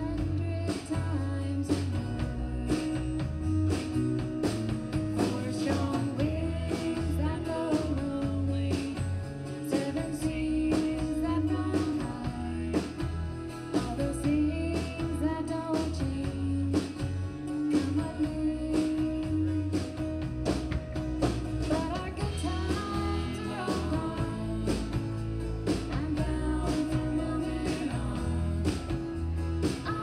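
Live country band playing: a woman singing over strummed acoustic guitar, electric bass and a drum kit keeping a steady beat.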